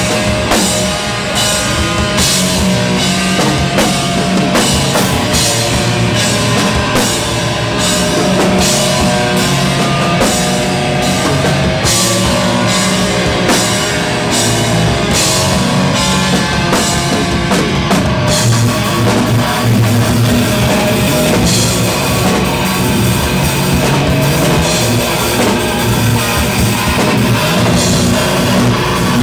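Live heavy rock band playing loud: electric guitar, bass guitar and drum kit, with regular drum hits. About 18 seconds in the sound changes, a steady high wash taking the place of the separate hits.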